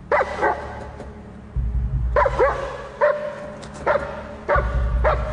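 German Shepherd barking aggressively in quick bursts of one or two barks, about eight barks in all.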